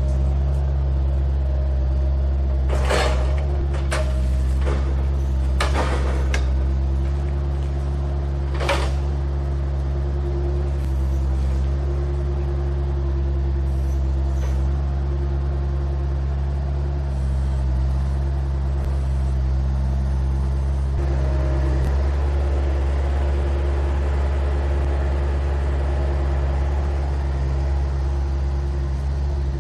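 Bobcat skid steer's engine running steadily, with several sharp clanks between about three and nine seconds in.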